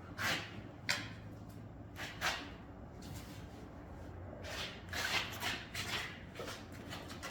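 Shuffling, scraping and a few light knocks from a large amplifier being handled and carried, in several short bursts with a busier stretch past the middle, over a steady low hum.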